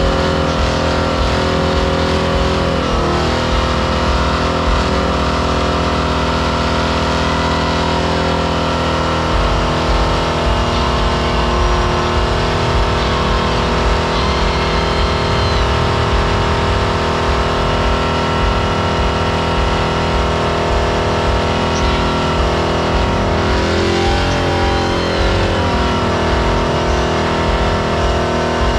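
Ford pickup truck doing a burnout, its engine held at high revs with the tyres spinning in place. The engine note dips and climbs back about three seconds in, and again a little over twenty seconds in.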